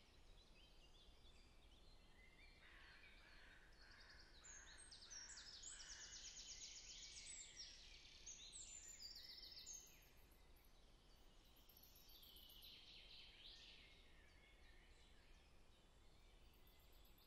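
Faint songbird chorus: small birds singing in quick trills and chirps, loudest from about four to ten seconds in.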